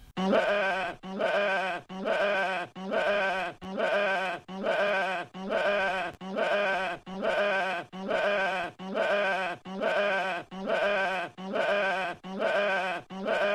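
A sheep's bleat, the same wavering 'baa' repeated over and over, a little more than once a second, as a looped sound effect.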